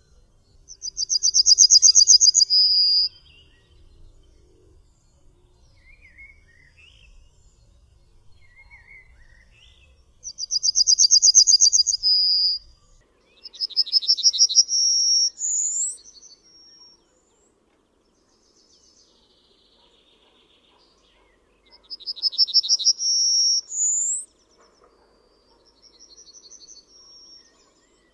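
Yellowhammer singing: four songs, each a fast run of repeated high notes ending in a drawn-out final note, in two of them with a final note that rises high. A fainter song follows near the end.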